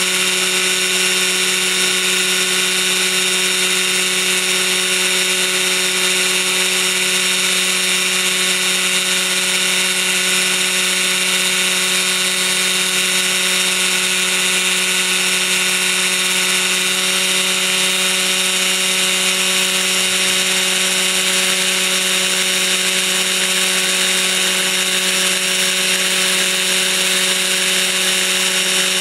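A model helicopter's O.S. .61 SX two-stroke glow engine running at a steady speed, driving the spinning main rotor.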